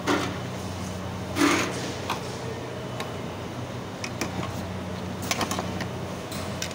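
Wiring and plastic connectors on a hybrid battery pack being handled by hand: scattered small clicks and rustles, one louder knock about a second and a half in, over a steady low hum.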